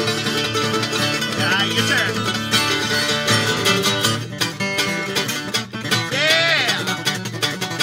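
Acoustic guitar and F-style mandolin playing an uptempo bluegrass tune together, the guitar picking rhythm under the mandolin's melody.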